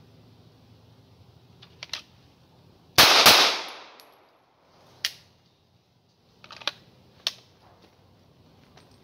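Two pistol shots from an HK P30L, about a third of a second apart, each with a ringing echo that dies away over the next half second. They make a two-shot drill: a double-action first shot followed by a single-action second shot. A few much fainter sharp clicks come before and after.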